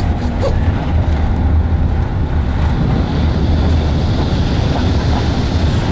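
A vehicle in motion: a steady low rumble of engine and road noise, with wind noise over it.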